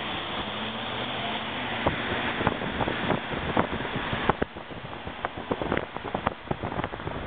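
Wind noise in a moving car, buffeting the microphone: a loud steady rush broken by rapid crackling gusts. The rush eases about four seconds in.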